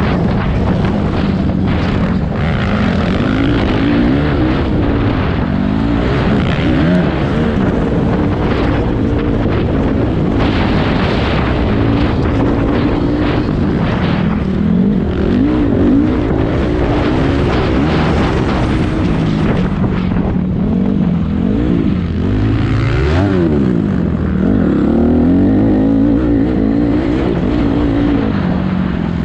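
Racing engines at full throttle, their pitch repeatedly rising and falling as they rev up and back off through corners and gear changes, over a constant rough rumble.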